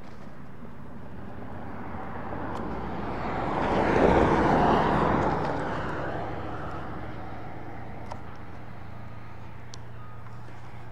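A road vehicle driving past: tyre and engine noise swells to a peak about four seconds in, then fades away.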